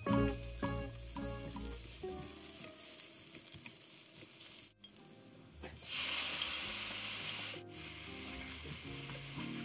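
Diced fish cake and vegetables sizzling in a hot nonstick frying pan as a silicone spatula stirs them. About six seconds in, a much louder sizzle lasts under two seconds and then cuts off sharply.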